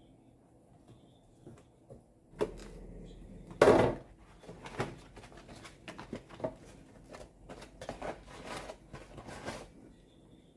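Household items being handled and set down: a string of knocks and light clatter starting a little over two seconds in, the loudest knock about a second after that.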